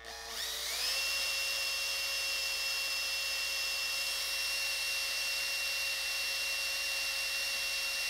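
Power drill with a thin twist bit drilling a pivot hole through a small carved wooden piece. The motor spins up over the first second, holds a steady high whine, and starts to wind down near the end once the bit is through.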